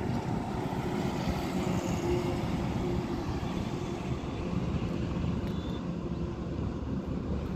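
Highway traffic of heavy goods trucks passing, a steady low rumble of engines and tyres.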